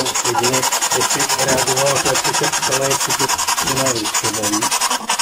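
Ghost-hunting spirit box scanning radio stations: a loud, steady hiss chopped into rapid even pulses, with short snatches of voices breaking through.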